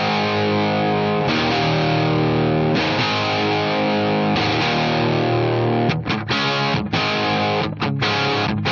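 Gibson Flying V electric guitar played through a Scarlett Scout tube amp head with 6L6 power tubes and a Hiwatt 4x12 cabinet loaded with Vintage 30 speakers, with an overdriven tone. Held chords change about every second and a half, then from about six seconds in come short, choppy strummed chords.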